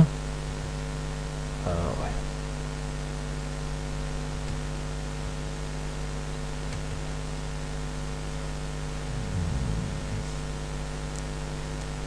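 Steady electrical mains hum on the microphone recording: a low buzz with several steady tones over a faint hiss. Two faint short sounds come through, about two seconds in and again near ten seconds.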